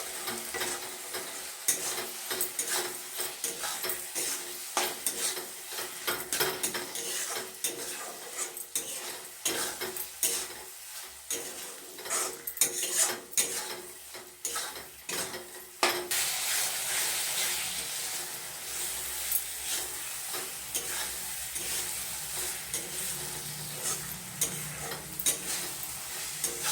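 Onion-tomato masala with turmeric sizzling in mustard oil in a kadhai while it is stirred, the utensil scraping the pan in many quick strokes. About two-thirds of the way in the stirring mostly stops and the sizzle carries on steadily.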